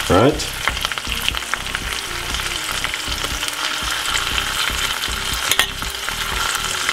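Salmon fillets frying in oil in a saucepan under a topping of cheese and vegetables: a steady sizzle with many small crackles and pops, and one sharper click about five and a half seconds in.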